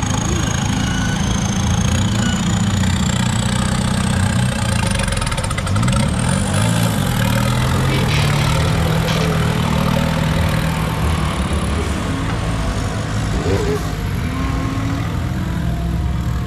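Engine of a Suzuki-based off-road prototype buggy running and revving while it works an obstacle, rising in pitch about six seconds in. A faint high whine climbs slowly in pitch throughout.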